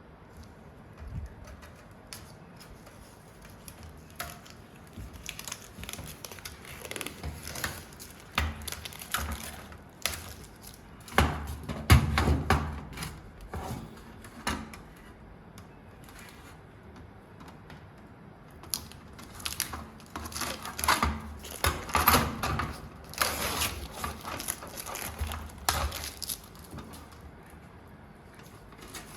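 Irregular clicks, taps and clanks of metal parts of a 2U DVR rack being handled and fitted together during assembly, coming in two busy spells with quieter gaps between.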